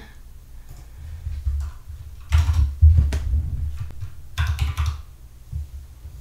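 Typing on a computer keyboard: scattered keystrokes, with two short runs of keys about two and a half and four and a half seconds in, as the model name in the code is retyped.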